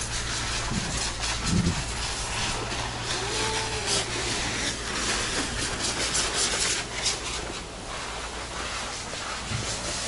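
Steady hiss with irregular scuffs and rubbing, the sound of a handheld camera carried by someone walking on paving.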